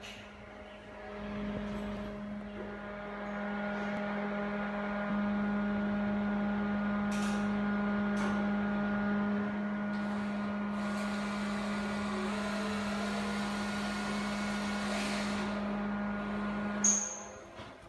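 KDK exhaust fan motor running with a steady electric hum, building up over the first few seconds. It stops abruptly with a sharp click near the end.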